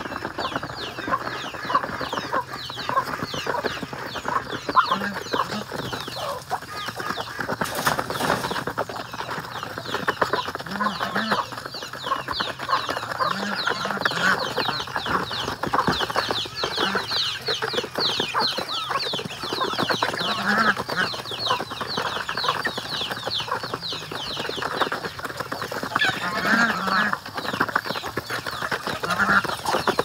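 A flock of Muscovy ducks and geese feeding together on rice: a dense, continuous chatter of rapid pecking and soft clucking calls, with short low calls every couple of seconds.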